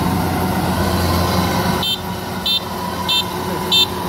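Kubota DC-93 combine harvester's diesel engine running steadily. About two seconds in, an electronic warning beeper starts, sounding short high beeps a little more than one a second.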